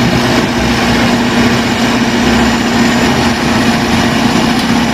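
Large crawler bulldozer's diesel engine running steadily under load as the machine pushes earth with its blade: a loud, even drone with a strong low hum.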